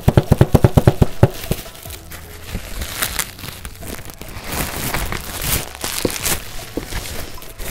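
A fast run of sharp clicks for about the first second, then plastic packaging crinkling and rustling as it is handled, with louder swells now and then.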